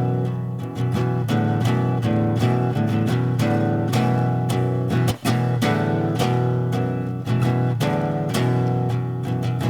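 Instrumental passage of a song: guitar chords strummed in a steady rhythm over a bass line, with no singing.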